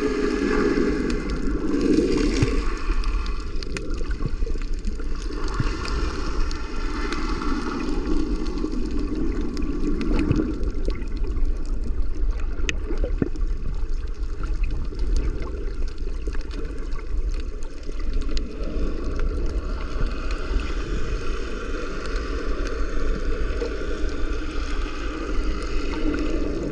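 Water gurgling and sloshing, with a constant low rumble and scattered small clicks.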